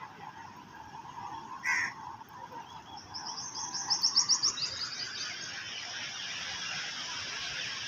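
A bird singing a quick run of high repeated chirps that step down in pitch, a few seconds in. It is preceded by one short sharp call and followed by a steady hiss.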